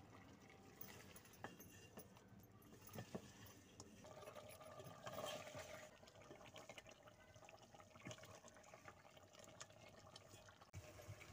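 Faint sizzling and bubbling of chicken cooking in an aluminium pot, with scattered clicks and scrapes from a wooden spatula stirring it.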